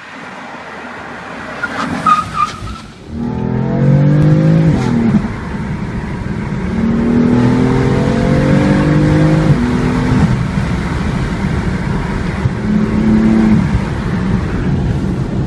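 A BMW M4's twin-turbo inline-six is heard first from outside as the car comes up fast and goes past. Then it is heard from inside the cabin under full-throttle acceleration: the engine note rises steeply, drops at an upshift about five seconds in, climbs again through the next gear and shifts near ten seconds, then rises once more.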